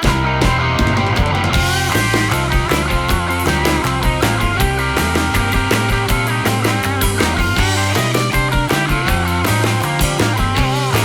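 Upbeat rock background music with electric guitar, bass and a steady drum beat.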